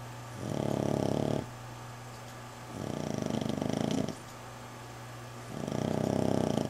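A sleeping dog snoring in an even rhythm: three snores about two and a half seconds apart, each lasting about a second.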